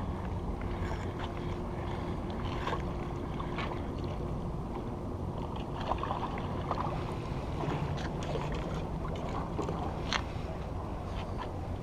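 Steady wind rumble on the microphone, with scattered light clicks and taps from handling a spinning rod and reel.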